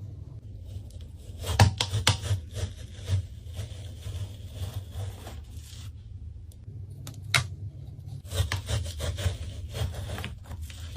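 Rubbing and scraping against a surface in two bouts of quick, rough strokes, with a single sharp click between them, over a low steady hum.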